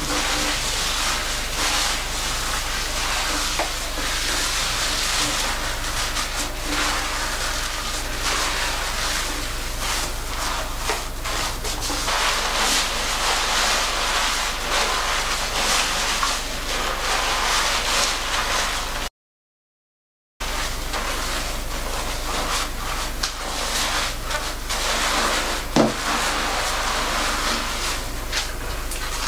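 Gloved hands scrubbing shampoo lather through thick, wet coily hair close to the microphone: a steady, dense squishing and crackling of foam. The sound cuts out for about a second two-thirds of the way through, and there is one brief sharp sound near the end.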